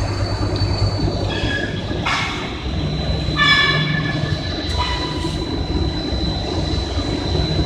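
Bow-type wire and cable bunching machine running at speed: a steady low rumble with a constant high whine, and short high squeals at about one and a half and three and a half seconds in.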